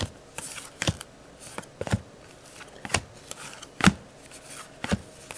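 Baseball trading cards being flipped through one at a time, each card snapping as it is moved off the stack, about once a second.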